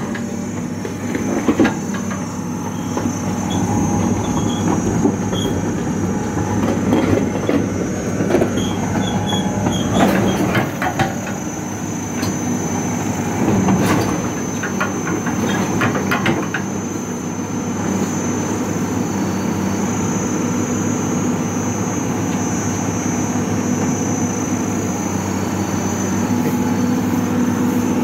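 Komatsu PC200LC crawler excavator travelling onto a low-loader trailer's timber deck: its diesel engine runs steadily under the clank of its steel tracks. Several sharp knocks come in the first half, then the sound settles into a steady run.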